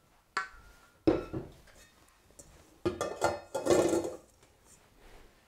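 Stainless steel mixing bowls clanking and clinking as one bowl is set down and an empty one is fitted onto a stand mixer's base. There is a light knock just after the start, a louder one about a second in, and a burst of clatter around three to four seconds in.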